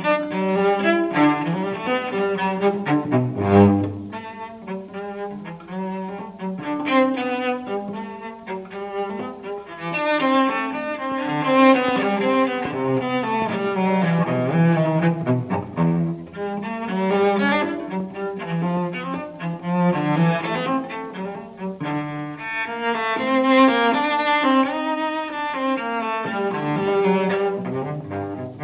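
Recorded music for cello, a bowed-string piece with a continuous flowing line of notes.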